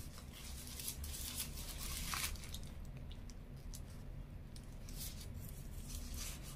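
Paper burger wrapper rustling and crinkling in the hands for the first two seconds or so, then a bite into a chicken burger and chewing, with small sharp mouth clicks.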